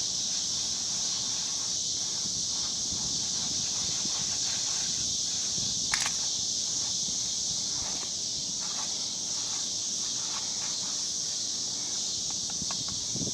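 Steady high-pitched insect chorus, with a few faint ticks and one sharp click about six seconds in.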